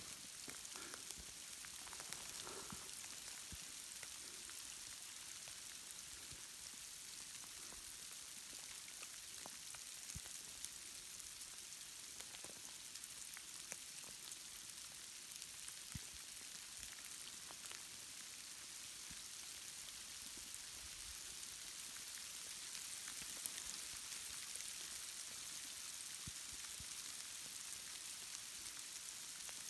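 Wet snow falling on dry brush, dead wood and bare ground: a steady fine hiss with many scattered light ticks as the flakes strike.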